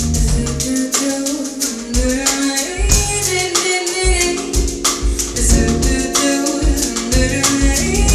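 Live band of drum kit, electric bass and piano playing an upbeat groove, with steady drum hits under the bass and piano lines.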